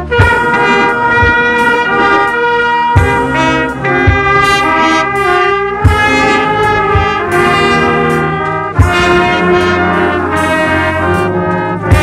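Trumpets and other brass playing sustained chords in harmony, with a trumpet loud and close. A few sharp low thumps land at irregular intervals under the music.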